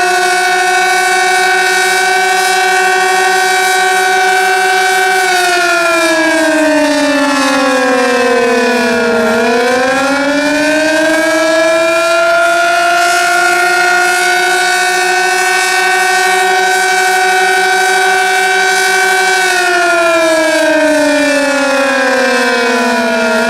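Sentry 16V1T-B single-tone outdoor warning siren sounding its attack (wail) signal. It holds a steady pitch for several seconds, sinks and climbs back about nine seconds in, holds again, then sinks once more near the end. Its pitch is lower than usual, which the owner takes as the siren being "sick".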